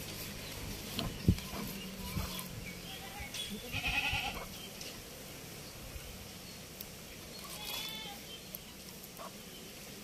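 Wet squelching and soft knocks of a hand mixing fish pieces in a thick masala marinade in a pot, and livestock bleating twice in the background, once about four seconds in and more faintly near eight seconds.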